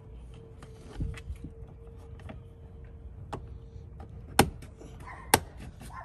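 Plastic trim cover being pressed into a Chevrolet Silverado's interior door panel around the door handle: small clicks of plastic being handled, then two sharp snaps near the end, about a second apart, as the cover clips into place. A faint steady tone sounds in the background and stops shortly before the end.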